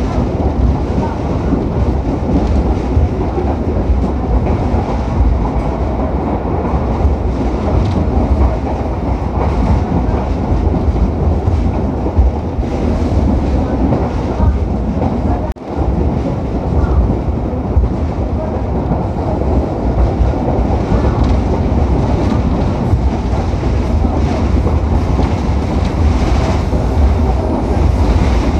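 Passenger train carriages rolling over the rails at speed, heard from a carriage window: a steady loud rumble of wheels on track, broken by a very short dropout about halfway through.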